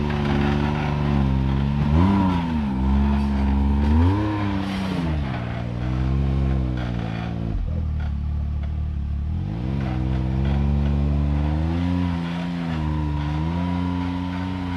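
Can-Am Maverick X3 side-by-side's turbocharged three-cylinder engine running low and being revved up and back down in short blips several times as the throttle is worked on a steep rock climb.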